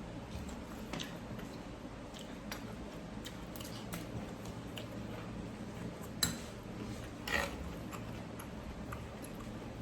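A person eating noodle soup: scattered small clicks of utensils and chewing, with a sharp click about six seconds in and a short, louder noisy sound about a second after it.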